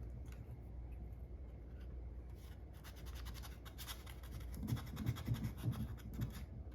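A small plastic part being hand-sanded with 150-grit sandpaper to roughen it for epoxy: quick, irregular scratchy strokes, with a few dull knocks in the second half.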